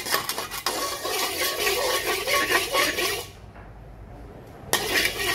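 Metal spatula scraping across the inside of an empty, dry wok, a rasping metal-on-metal sound. It stops about three seconds in and comes back briefly near the end.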